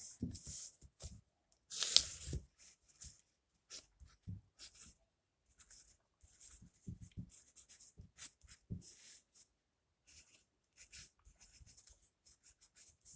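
Writing by hand on paper: irregular short scratchy strokes, with a sharper tap about two seconds in.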